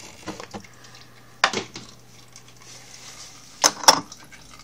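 Hard clinks of small parts being handled: a few light clicks at first, a sharp clink about a second and a half in, then two louder clinks close together near the end, over a faint low steady hum.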